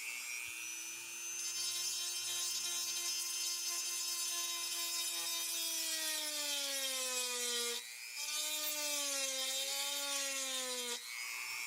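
Dremel rotary tool with a small ball burr grinding down the head of a pocket knife's handle pin: a steady motor whine whose pitch sags as the burr bears down on the pin. It cuts out briefly about eight seconds in, runs again at the lower pitch, and stops near the end.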